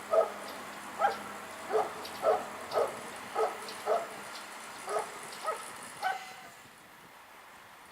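A dog barking about ten times in quick, slightly uneven succession, short high yaps, then falling quiet about six seconds in.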